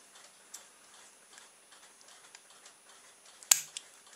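Faint ticks of small plastic snap-cap sample bottles being handled, then one sharp snip about three and a half seconds in as scissors cut the cap off a bottle.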